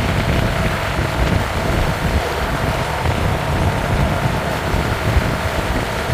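Wind rushing and buffeting over the microphone of a moving motorcycle, with the motorcycle's engine running steadily underneath.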